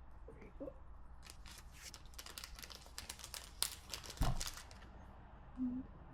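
Foil booster-pack wrapper crinkling and crackling in short sharp strokes as the pack is handled and opened, with one soft knock about four seconds in.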